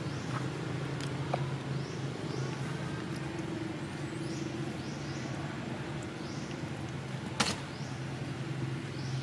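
A steady low engine hum, with short rising high-pitched chirps repeating every second or so. A single sharp click comes about seven seconds in.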